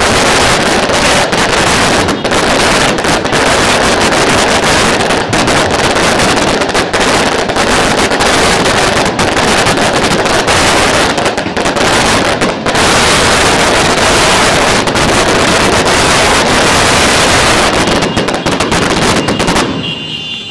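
A long string of firecrackers going off in a rapid, unbroken crackle that stops abruptly near the end.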